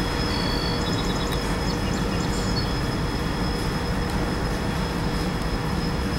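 Freight train of covered hoppers and coal hoppers rolling past at close range: a steady rumble of steel wheels on rail, with a few short high squeaks about a second to two and a half seconds in.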